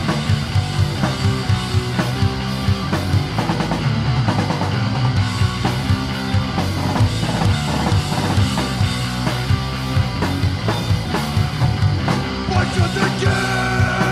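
Punk rock recording: distorted guitars and bass over rapid, steady drum-kit hits. Near the end a sustained high note rings out over the band.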